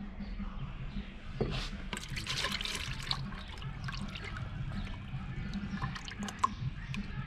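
Thick electric blue automotive paint poured from a metal gallon can into a plastic mixing bucket: a splashing, trickling flow that swells about a second and a half in and carries on, with small clicks and one sharp tick near the end.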